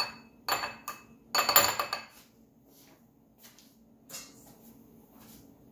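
Clinks and knocks of kitchenware being handled and set down on a ceramic bowl and stone countertop: three short clatters in the first two seconds, the loudest with a brief ring, then a faint knock about four seconds in.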